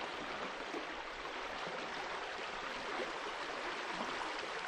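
Creek water running over riffles, a steady rushing and babbling.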